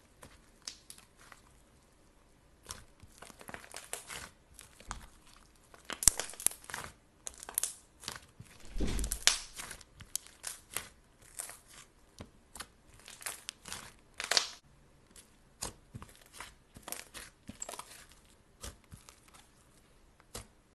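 Slime being pressed and kneaded by hand with a crumbly white chunk mixed in, giving irregular crunchy crackles and tearing sounds in clusters, with a dull low squish a little before halfway.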